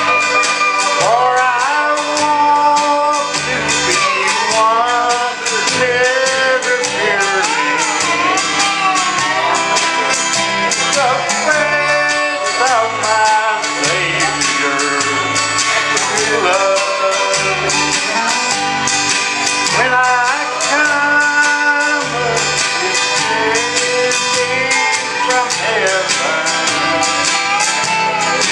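Country music: a band with plucked guitar and a steady bass line, with singing.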